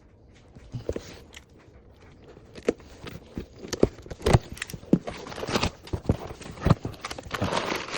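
Irregular knocks, taps and thuds with some rustling as a package is handled and opened by hand, the knocks coming more often after the first couple of seconds.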